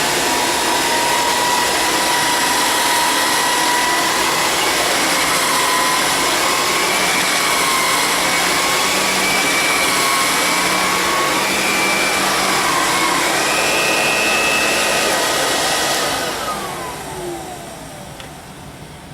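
Vintage Electrolux upright vacuum cleaner running while vacuuming baking soda off carpet: a steady rush of air with a high motor whine that wavers slightly in pitch. About sixteen seconds in it is switched off and the whine falls away as the motor spins down.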